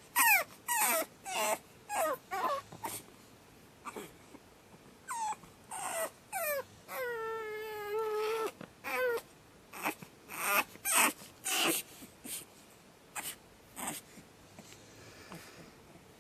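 Pug puppy screaming: a quick run of short, shrill cries that slide down in pitch, with one long held wail about seven seconds in, then fainter, sparser cries over the last few seconds.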